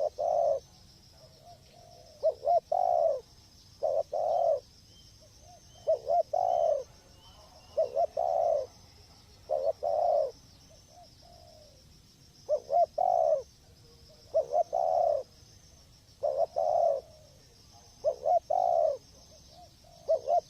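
Spotted dove cooing over and over, one call about every two seconds, each call a short note or two followed by a longer coo.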